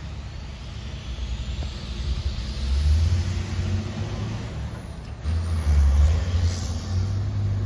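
Hi-rail bucket truck's engine revving as it pulls off the track across a grade crossing, getting louder twice: about three seconds in and again about six seconds in.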